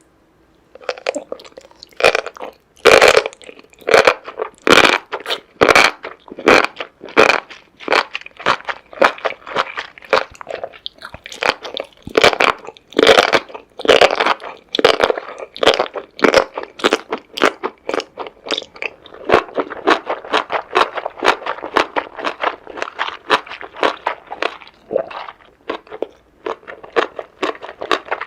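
A person biting and chewing seafood with crisp crunches, a rapid run of separate bites and chews starting about a second in and going on without a break. The loudest crunches come in the first several seconds.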